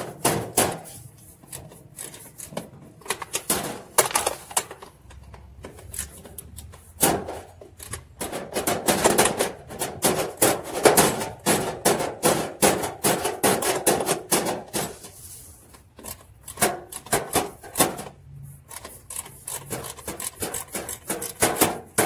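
Socket ratchet wrench clicking in irregular runs of quick strokes, with small metal knocks, as it works the 13 mm bolts that hold a top-load washer's transmission.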